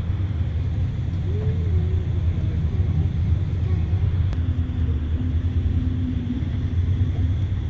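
Steady low rumble, with a faint steady hum coming in about four and a half seconds in and stopping about three seconds later.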